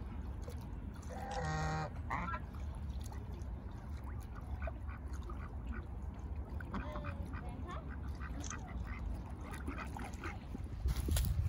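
Domestic geese and mallard ducks calling: one longer, strident call about a second in and a short one right after, then scattered quieter quacks and calls. A gust of wind hits the microphone near the end.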